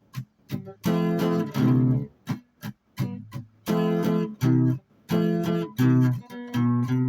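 Guitar strumming chords in a stop-start rhythm: ringing chords cut short, with quick muted scratch strokes in between.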